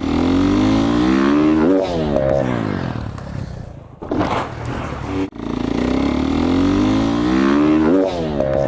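Dirt bike engine revving: its pitch climbs, then blips sharply up and down. It cuts off abruptly about five seconds in and the same rising rev starts over.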